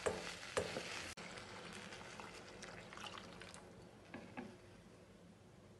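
Wooden spatula stirring sweet corn and carrots sizzling in butter in a steel kadai, with a few sharp scrapes in the first second. After an abrupt cut, the spatula moves through water in the pan with a faint hiss and scattered light clicks, fading toward quiet.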